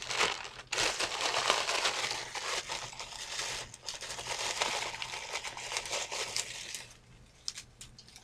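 Dry fire-building material crunching and crinkling as it is handled, a dense run of small crackles that eases off about seven seconds in.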